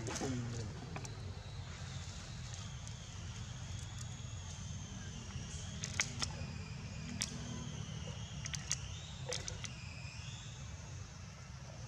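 Outdoor ambience: a steady low rumble, scattered sharp clicks, and faint, thin, high wavering calls from about four seconds in.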